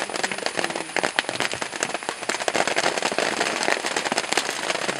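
Dense, irregular crackling and snapping of grass and leafy stems being torn up and chewed by grazing Asian elephants.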